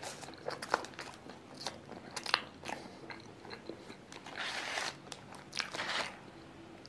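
Crunching and chewing of a crispy cream puff with a crunchy crumb topping, in many sharp crunches. Twice in the second half a paper wrapper rustles as another puff is unwrapped.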